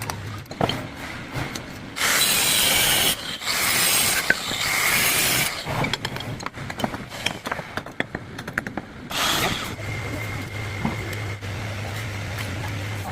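Plastering work: three loud rasping scrapes of a trowel or float against a wall, the first two longest, among scattered knocks and clicks, with a steady low hum underneath near the start and end.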